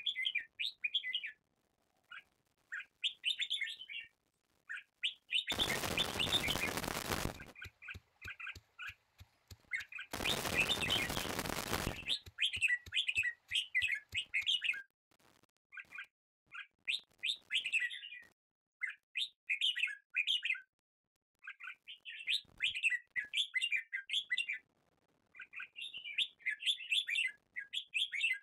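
Birds chirping in short repeated bursts. Twice, about a fifth and a third of the way in, a loud rushing noise lasts about two seconds, and each is followed by a quick run of light knocks.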